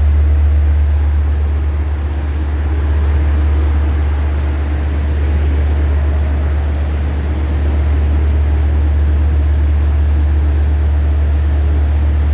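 Long Island Rail Road diesel locomotive's engine running steadily up close, a loud, deep, unbroken drone.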